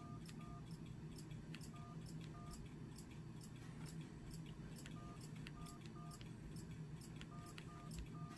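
Samsung SGH-A727 flip phone's keypad tones: short two-note beeps, mostly in pairs about half a second apart, as its navigation keys are pressed to scroll through the wallpapers, with faint clicks of the buttons.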